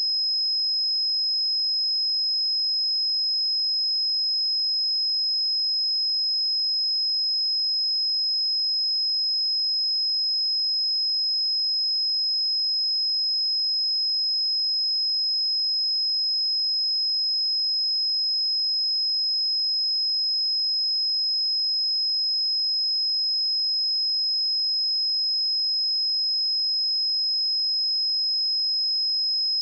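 A steady, unbroken 5114 Hz pure sine-wave test tone, a high-pitched whistle-like pitch held at constant level.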